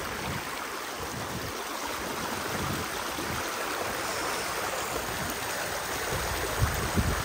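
River water rushing steadily, with a couple of dull low thumps near the end.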